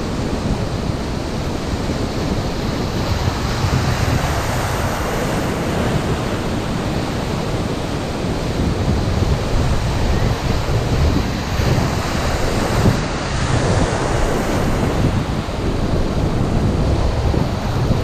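Small waves breaking and washing in the shallows at a river mouth, with steady wind buffeting the microphone.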